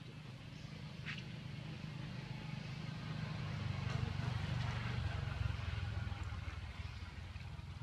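Engine rumble of a passing motor vehicle, swelling to its loudest around the middle and then easing off. A brief high chirp sounds about a second in.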